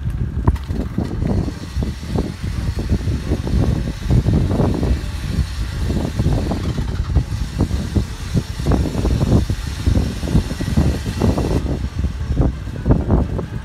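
Vehicles moving slowly in a tow, heard as a continuous low, uneven rumble that surges irregularly.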